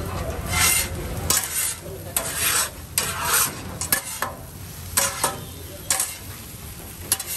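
Two flat metal spatulas scraping across a hot flat griddle and clanking against it as shredded parotta is turned and gathered into a heap, with the food sizzling. Sharp clanks come irregularly, about once a second, between longer scrapes.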